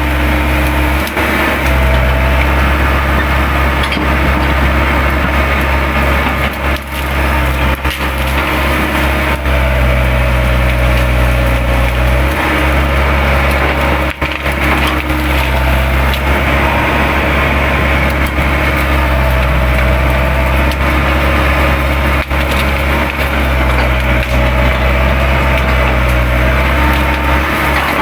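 Hydraulic excavator running under load, its engine note steady with a hydraulic whine that rises and falls, while brush and branches snap and splinter repeatedly as the bucket tears through and piles the scrub.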